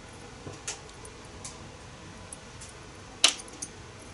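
Steel bearing balls being picked out of a Jacobs ball-bearing Super Chuck with a dental pick: a few light ticks of the pick against the chuck, then about three seconds in a ball drops into an aluminium foil pie pan with a sharp click and a small rebound tick.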